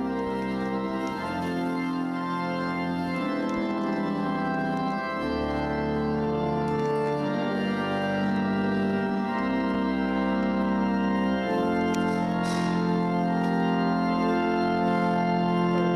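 Organ playing slow, sustained chords, with the chord changing every second or two.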